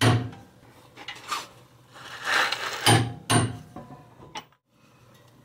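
Large torque wrench and socket working a front control arm bolt: rasping ratchet strokes and metallic clicks in a few irregular bursts, with one sharp click near the end.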